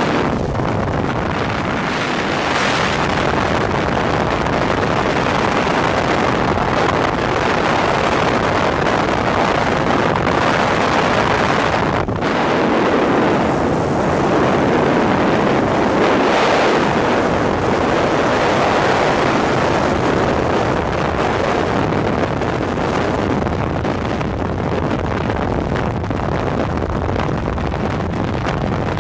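Loud, steady rush of wind buffeting the microphone, swelling and easing slowly, with no clear engine tone.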